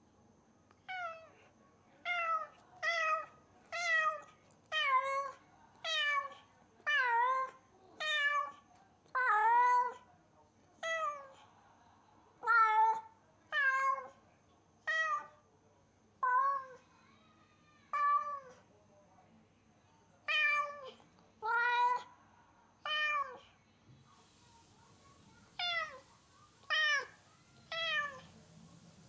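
Domestic tabby cat meowing loudly over and over, about one drawn-out call a second with a short pause near the end: a cat left home alone calling out.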